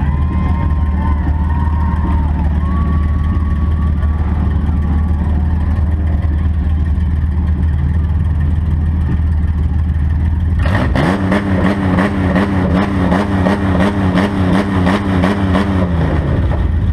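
Demolition derby car's engine heard from inside its stripped cabin: a steady low idle rumble, then about two-thirds of the way in it revs up sharply and holds a higher speed with a rapid pulsing rattle for about five seconds before dropping back.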